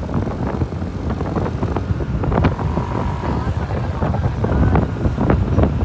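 Vehicle running on the road with heavy wind buffeting the microphone, a continuous low rumble broken by rapid gusty knocks.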